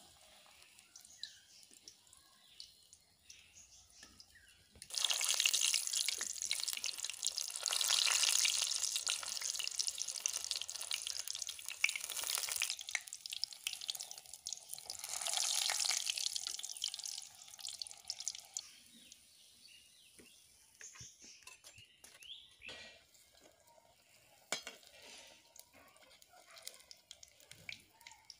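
Batter-dipped spinach leaf frying in hot oil in a kadai: a loud crackling sizzle starts about five seconds in, eases after several seconds, flares again briefly, then dies down to faint scattered crackles.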